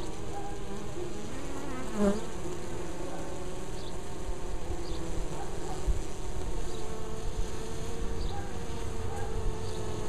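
Honey bees buzzing at a busy hive entrance, many wingbeats overlapping into a steady, slightly wavering hum. About two seconds in, one bee passes close and briefly sounds louder, its pitch sliding.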